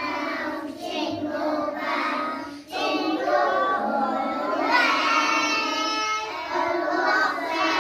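A group of young schoolchildren singing together.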